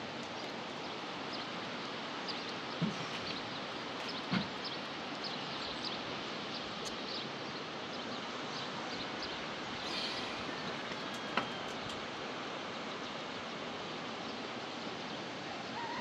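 Steady rushing water noise, with scattered light ticks and two soft knocks about three and four and a half seconds in.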